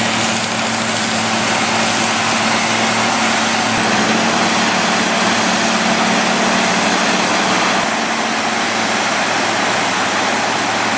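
Pavement cold-milling machine at work: a steady, loud grinding noise from the cutting drum over a diesel engine hum that fades about four seconds in.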